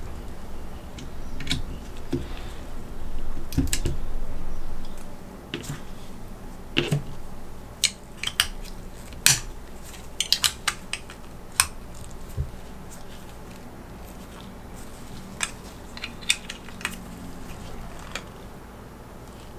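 Gloved hands handling a mecha action figure and its parts: rubbing and shifting at first, then irregular sharp clicks and taps as small hard toy parts are fitted and snapped together.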